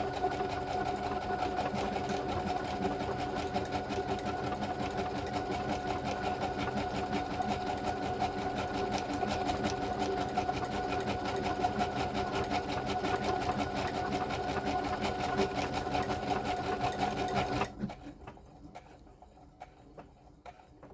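Brother HC1850 sewing machine stitching a one-step buttonhole automatically at a turned-down speed: a steady run with a fast, even needle rhythm that stops suddenly about three seconds before the end, followed by a few light clicks.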